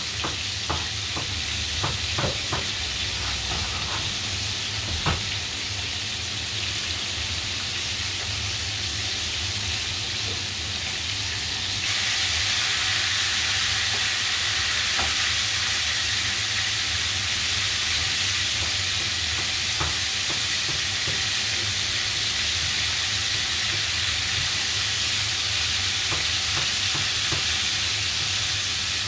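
Breaded chicken pieces frying in hot oil in a pan: a steady sizzle with a few sharp pops in the first seconds. The sizzle turns suddenly louder and brighter about twelve seconds in.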